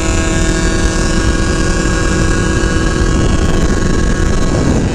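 Two-stroke scooter engines running hard at full throttle, holding a steady high engine note, under the rush of wind on the microphone. Part of the engine note fades about three seconds in as the other scooter pulls away.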